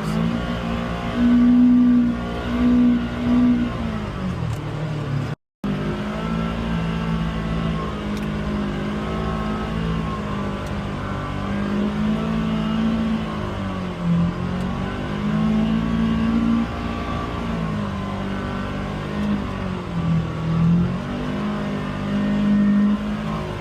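Polaris Xpedition UTV engine running continuously, its pitch rising and falling as the throttle is worked. The sound drops out completely for a moment about five seconds in.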